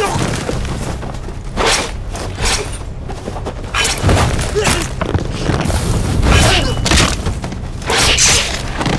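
Film fight sound effects: a rapid series of hard punch and body-hit impacts with swishes of fast movement, over a low, steady music score.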